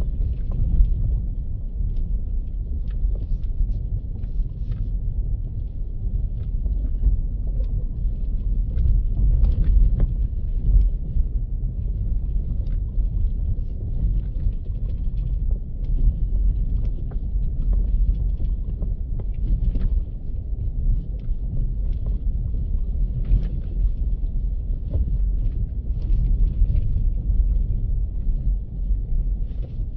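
A vehicle driving over a rough dirt road: a steady low rumble, with scattered knocks and rattles as it goes over bumps.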